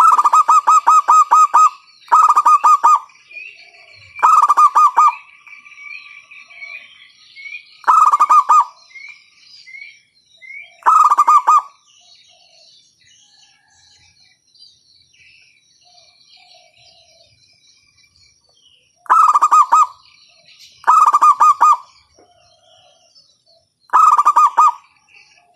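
Local zebra dove (perkutut) calling loudly: eight rapid pulsed cooing trills, each a second or so long, spaced a few seconds apart with a longer pause midway, and faint high chirping of small birds between them.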